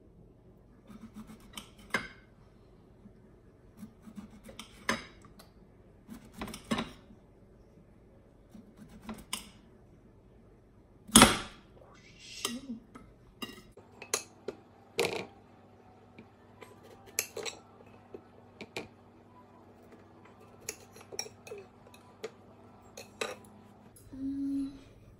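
Knife slicing zucchini on a plate, the blade clicking and clinking against the plate in irregular strokes, with one much louder clack about eleven seconds in.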